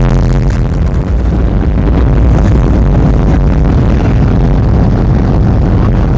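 Loud live hard dance music from the arena's sound system with a heavy steady bass, badly distorted and smeared as it overloads the recording microphone.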